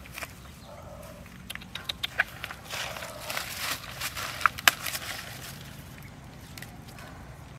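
Dry corn husks crackling and rustling as they are torn off an ear of dried corn by hand, with two sharp snaps a little over halfway through.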